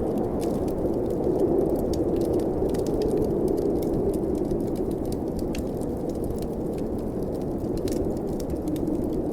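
Blizzard wind blowing steadily, swelling a little and easing again, with a wood fire crackling over it in scattered sharp pops.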